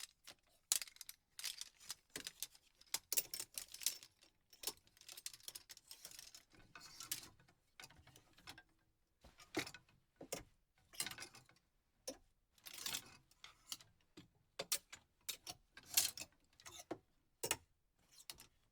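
Clothes hangers clattering and clicking on a closet rail, in irregular bursts of rattling with short pauses between.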